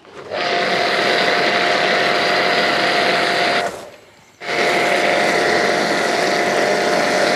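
Shakti S3 electric pressure washer running while spraying pink car shampoo through a foam cannon: a steady motor whine over the hiss of the spray. It stops for under a second about halfway through, then starts again.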